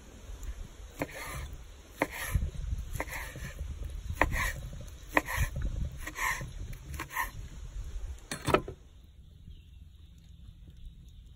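Knife slicing through a cooked T-bone steak on a wooden cutting board, the blade knocking on the board about once a second with a short scrape after each cut. The cutting stops about nine seconds in.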